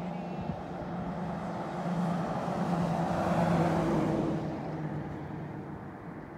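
A motor vehicle driving past: a steady engine hum with road noise that swells to its loudest about three and a half seconds in, then fades.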